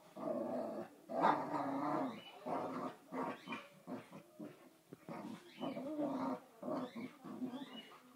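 A boxer and a basenji play-fighting, with a string of growls that start and stop every second or so.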